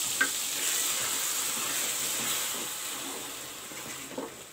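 Onion, green chilli and herb masala frying in hot oil with tomato puree just poured in: a steady sizzling hiss that fades over the last second or so as it is stirred. A single sharp click sounds just after the start.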